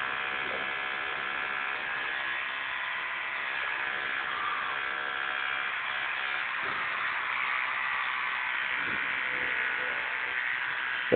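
Children's electric toothbrush buzzing steadily, its head held in a toddler's mouth.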